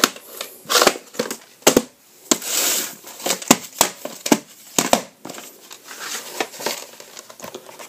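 Handling noise: irregular sharp plastic clicks and knocks with bursts of rustling, as VHS tape cases are picked up and moved about by hand.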